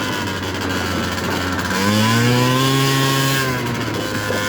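70cc big-bore two-stroke scooter engine under way, its revs low at first, rising as the throttle opens about two seconds in, then dropping back near the end.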